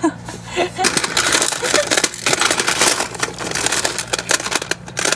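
Small hard objects being rummaged through in a metal tin: dense, irregular rattling, clicking and rustling.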